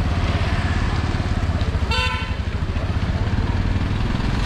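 Motorcycle engine running with a steady low pulse, and a vehicle horn gives one short beep about two seconds in.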